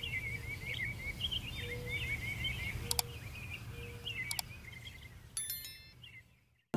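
Birds chirping in quick repeated calls over a low steady hum. A sharp click comes about three seconds in and another about four and a half seconds in, and a short high chime follows near the end.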